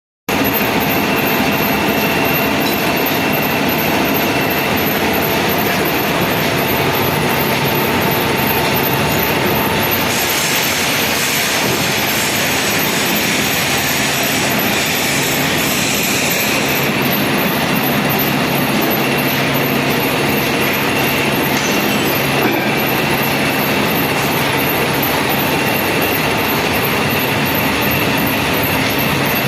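A heavy metalworking machine tool running steadily, with a constant high whine over a grinding, rumbling noise.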